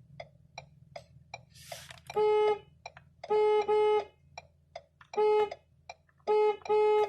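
Car turn signal ticking steadily at about two and a half clicks a second over a low engine idle. The car horn sounds in a pattern: one honk, then two quick honks, then one, then two.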